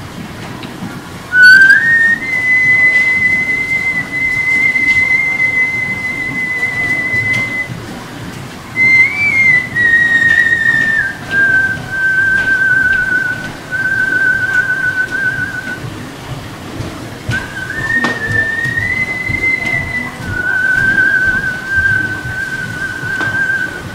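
A man whistling long, high held notes, some with a wavering vibrato, stepping up and down between a few pitches and breaking off briefly now and then for breath.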